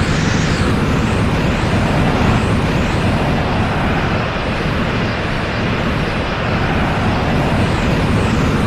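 Dragon Ball Z 'Potential Unleashed' power-up sound effect: a loud, steady rumbling energy roar, with faint high swishing sweeps that rise and fall over it every second or two.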